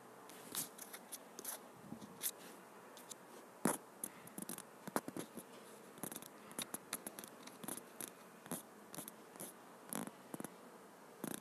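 Faint, irregular clicks and scratchy ticks, several a second: fingers tapping and swiping on a phone's touchscreen and handling the phone, picked up by its own microphone.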